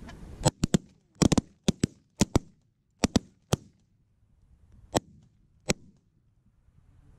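A volley of 12-gauge-type shotgun fire from several guns shooting at geese: about a dozen sharp reports, some barely a tenth of a second apart, in the first three and a half seconds, then two more spaced out near the end.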